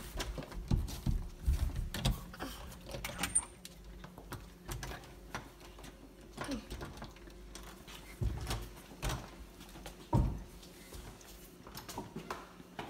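A chrome doorknob being turned and rattled on a door, with scattered metallic clicks and dull knocks against the door. Near the end the door is pushed open.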